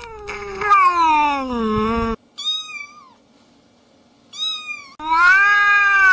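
A cat yowling: a long drawn-out meow falling in pitch, two short higher meows in the middle, then another long meow starting about five seconds in.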